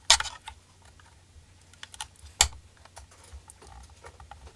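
Scattered sharp clicks and knocks of parts being pushed and handled while a piece is worked out of a GE ECM blower motor during teardown. The loudest knocks come right at the start and again about two and a half seconds in, with lighter ticks between.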